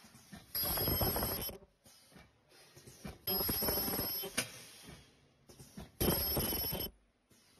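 KL-62 sachet filling and packing machine working through its cycle: a loud, ringing buzz of about a second comes three times, roughly every two and a half to three seconds, with quieter machine noise between. A sharp click near the end of the second buzz.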